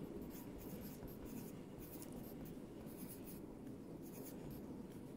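Staedtler Tradition graphite pencil writing on grid paper: faint, irregular scratching strokes as words are written out.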